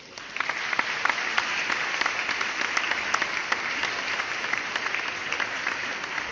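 Audience applause: many hands clapping in a dense, steady patter that swells in just after the start and eases slightly toward the end.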